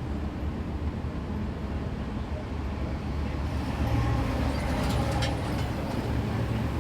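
Road traffic rumbling, with a vehicle engine's low hum growing louder about four seconds in and a few brief clicks soon after.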